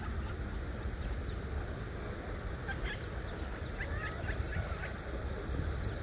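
Mallard ducklings peeping: short high cheeps in quick clusters about three and four seconds in, over a steady low rumble.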